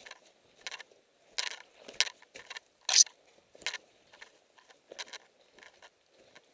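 Footsteps crunching in snow, a step about every half to two-thirds of a second, with the loudest crunch about three seconds in.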